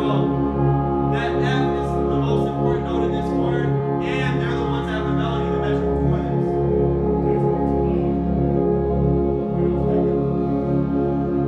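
Tubas and other brass holding long, low sustained chord tones in an ensemble warm-up, with brighter, higher notes sounding over them twice.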